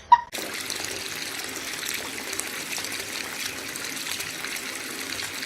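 A steady gush of running water, starting abruptly just after the start.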